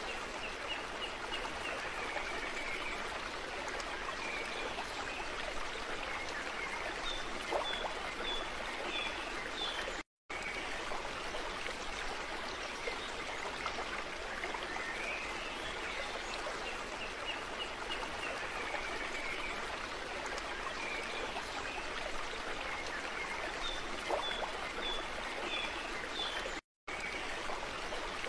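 Steady rush of a flowing stream with high chirping calls over it, from a looped nature-ambience track. The same stretch repeats about every sixteen seconds, and the sound drops out to silence for a split second each time the loop restarts, twice.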